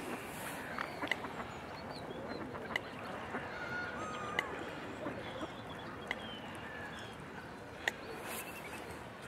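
Waterfowl calling: a busy mix of overlapping honks and quacks with short, higher cries, and a few sharp clicks scattered through.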